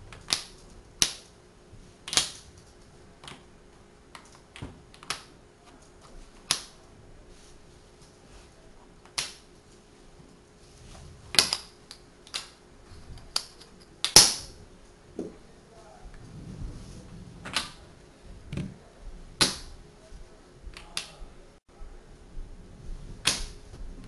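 Tegu magnetic hardwood blocks clicking together as they are snapped onto one another: about twenty sharp wooden clicks at irregular intervals, the loudest about eleven and fourteen seconds in.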